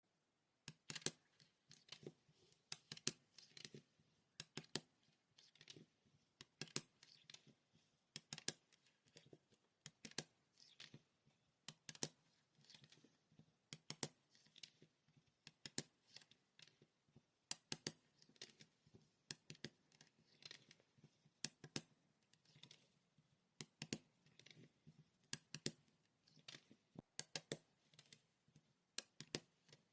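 Close-up handling sounds: a steady run of sharp clicks and taps, often two or three in quick succession, about one to three a second, as small hard pieces or packaging are handled.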